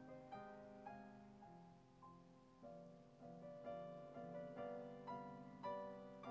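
Quiet background piano music, a slow run of notes and chords struck about twice a second and left to ring.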